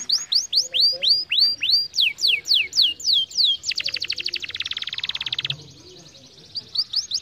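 Domestic canary singing: a series of clear notes sliding steeply down in pitch, about three a second, then a fast buzzy trill for nearly two seconds, a brief pause, and a quick run of notes starting again near the end.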